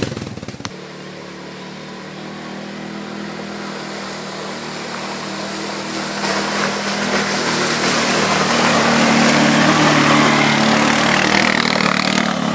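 Quad bike (ATV) engine running, growing steadily louder over about ten seconds as the quad comes up the lane toward the microphone. A single sharp click about half a second in.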